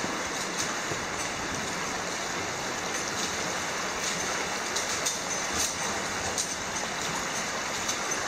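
Steady noise of running water in a cave passage, with scattered light clicks of boots stepping on loose rocks.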